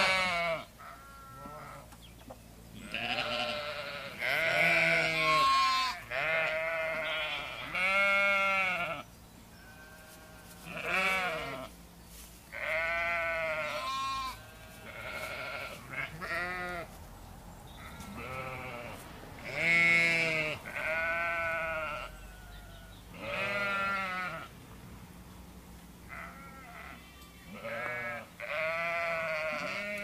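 Sheep bleating over and over, a dozen or so wavering calls of varying pitch, each about a second long, with short pauses between them.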